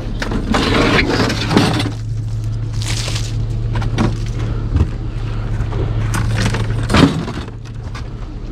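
Pieces of scrap steel being thrown off by hand, crashing and clattering onto a pile in several separate hits, the loudest about seven seconds in, over a steady low hum.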